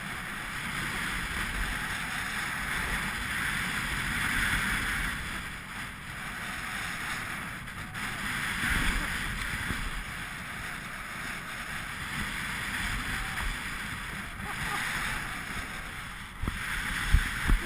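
Wind rushing over an action camera's microphone and skis scraping over packed snow during a downhill run, the scraping swelling every few seconds. A couple of sharp knocks near the end.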